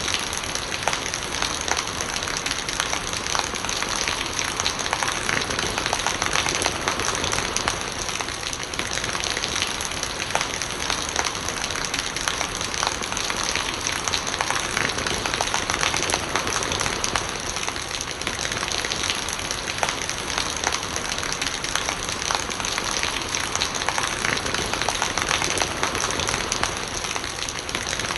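Steady rain falling and spattering on surfaces, with a dense patter of individual drops and rainwater gurgling as it runs off.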